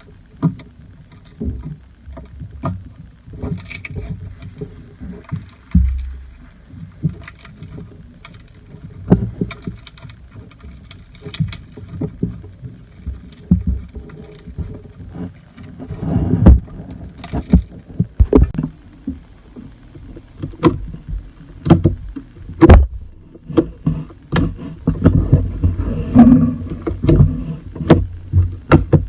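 Slime being squished and handled by hand: irregular soft squelches, low thumps and short clicks, busier in the second half.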